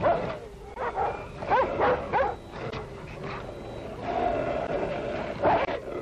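Šarplaninac sheepdog and wolf fighting: snarls, barks and yelps in short bursts. A longer drawn-out cry comes about four seconds in, and a loud yelp near the end.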